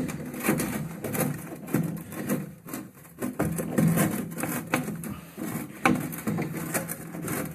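Plastic flush siphon knocking, clicking and scraping against the cistern parts as it is worked by hand back into place, in irregular handling noises.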